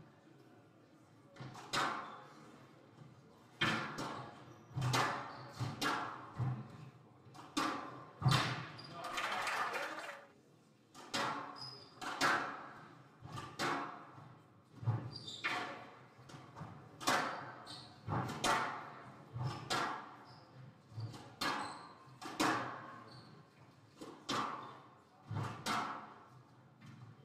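Squash rally: the ball cracking off rackets and the court walls about once a second, each hit echoing around the court.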